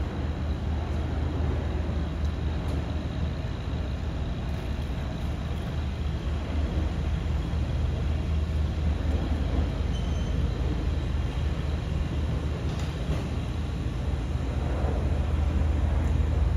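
City street traffic: a steady low rumble of passing vehicles that grows a little louder near the end.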